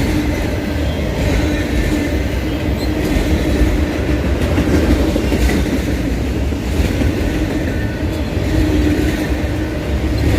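Norfolk Southern autorack freight train rolling past at close range: a steady loud rumble of steel wheels on rail, with a constant hum and scattered clicks.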